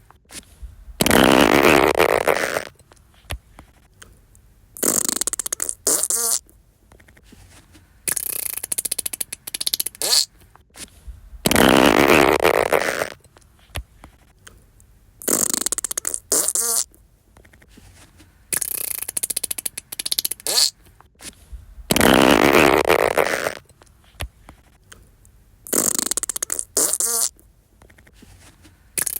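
Fart sound effects: a series of separate farts of different lengths, the longest lasting about a second and a half, with the same sequence repeating about every ten seconds.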